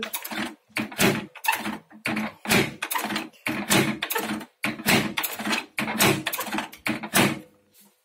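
Door-release mechanism of an AFK MWDGE20 microwave oven clicking and clacking over and over, about twice a second, as it is worked by hand. The plastic and metal latch parts snap back each time, a sign that the repaired open button works again.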